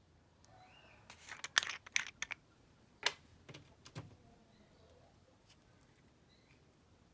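Slime being squished and worked by hand, giving a cluster of sticky clicks and pops about a second in and a couple of single pops a little later.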